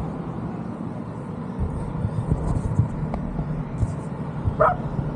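A stream of motorcycles riding past, their engines running steadily in a continuous low drone. A brief higher-pitched cry sounds near the end.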